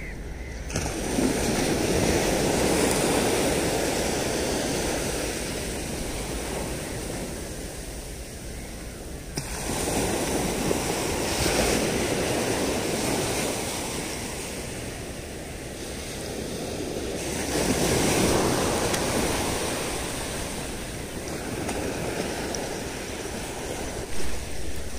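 Sea surf breaking on a sandy beach, the wash of noise swelling and fading in three surges about eight seconds apart.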